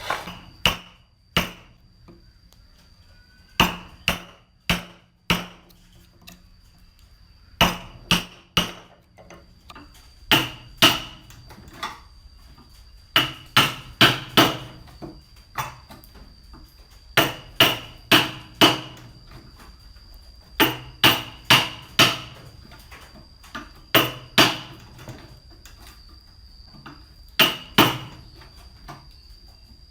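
Sharp hammer blows in short groups of two to four, each with a brief ring, as part of cutting a wooden joint by hand. A faint steady high whine runs underneath.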